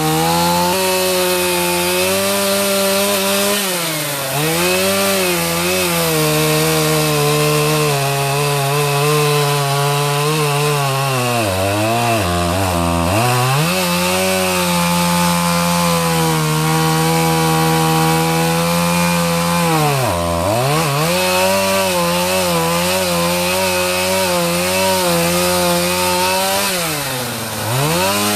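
Small two-stroke chainsaw running at high revs while cutting through a tree too big for it. The engine pitch sags and recovers several times as the chain bogs down in the wood.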